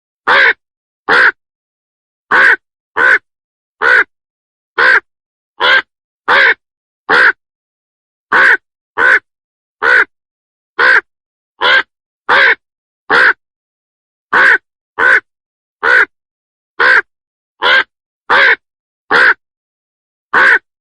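A crow cawing over and over: short harsh caws roughly one every three-quarters of a second, in runs of two to five with brief pauses between runs.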